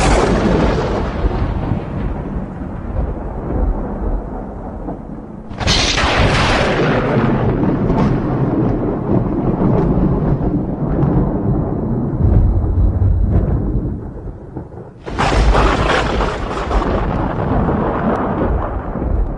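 Thunder sound effect: three sudden claps of thunder, one at the start, one about six seconds in and one about fifteen seconds in, each trailing off in a long rumble.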